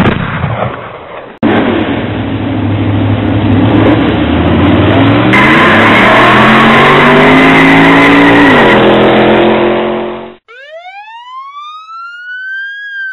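Sound-effect recording of a car engine revving hard, its pitch climbing for several seconds before it drops and cuts off, after a brief noisy burst at the start. About ten seconds in, a police siren wail begins, sweeping up and starting to fall.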